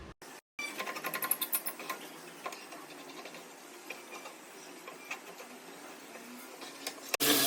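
A quick run of light mechanical clicks and rattles that thins out to occasional ticks. A louder, steady machine-like sound cuts in just before the end.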